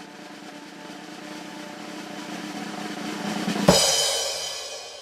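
Snare drum roll growing steadily louder, ending about three and a half seconds in with a loud crash-cymbal hit that rings away.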